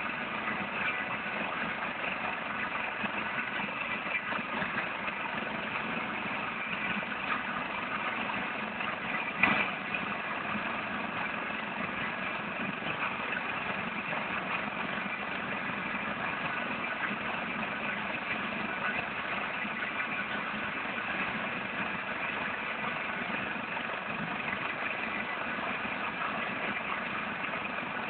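Helicopter on the ground with its turbine engines running and main rotor turning: a steady, unchanging whine over rotor noise. A brief knock about nine and a half seconds in.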